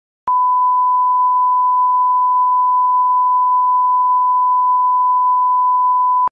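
A steady 1 kHz reference tone, one unchanging pure pitch, that comes in sharply just after the start and cuts off abruptly about six seconds later: the line-up tone laid at the head of a broadcast programme.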